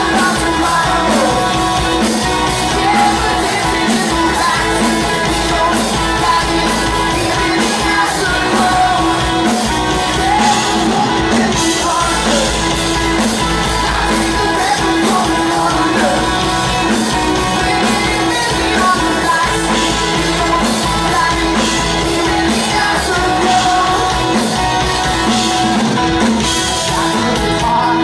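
Live pop-rock band playing loud: a male lead singer over drums, electric guitars and bass, with a steady driving beat.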